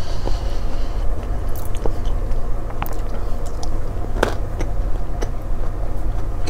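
A person chewing a date stuffed with salty butter and almond, picked up close on a lapel mic: steady chewing with scattered small clicks.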